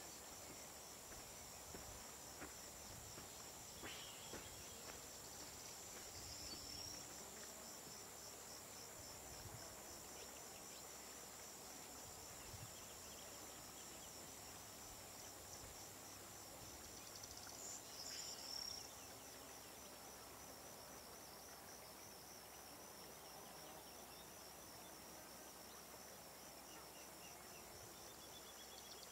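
Faint, steady high-pitched trilling of insects in a continuous pulsing rhythm, swelling briefly about eighteen seconds in.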